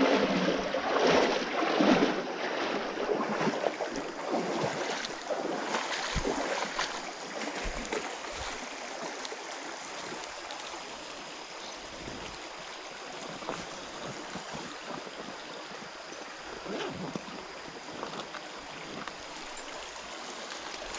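Shallow creek water rushing over a riffle, loudest at first and dropping to a steady, quieter rush after several seconds, with a few brief knocks.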